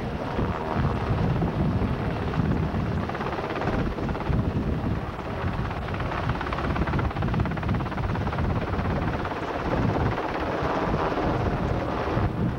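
UH-60 Black Hawk helicopter hovering, a steady rotor and turbine noise with rotor wash buffeting the microphone.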